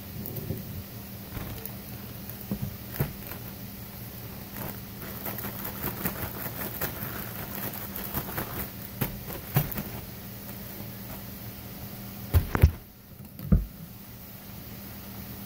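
Kitchen handling sounds over a steady hiss and low hum: light clicks and knocks as a glass jar and a plastic mixing bowl are picked up and moved on a glass-top stove. A few loud bumps close to the microphone come about twelve seconds in and again a second later.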